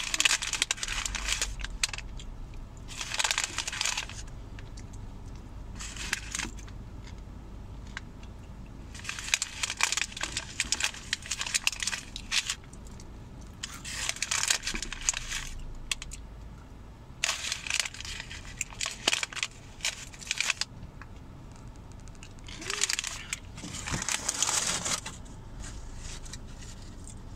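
Paper fast-food bag and wrapper rustling and crinkling as it is handled, in irregular bursts of a few seconds each with short quieter gaps between.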